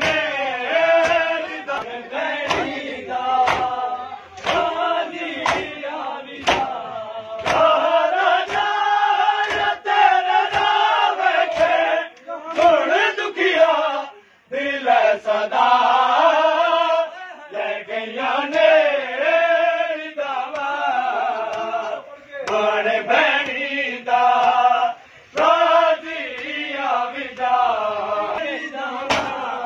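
Men's voices chanting a Muharram noha, cut by sharp slaps of hands beating bare chests (matam) in a steady rhythm, roughly once a second. The chant breaks off briefly twice.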